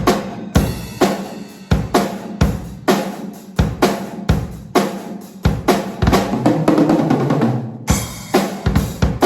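Drum kit playing a beat, with sharp kick and snare hits repeating throughout, as part of music.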